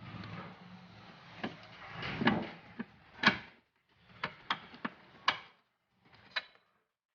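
Rear suspension trailing arm of a Fiat Palio Weekend being worked loose and pulled out of its mounting by hand: a series of sharp knocks, the loudest about halfway through, with rustling handling noise between them.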